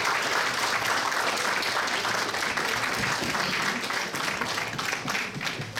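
Audience applauding: many hands clapping in a dense, even patter that drops away near the end.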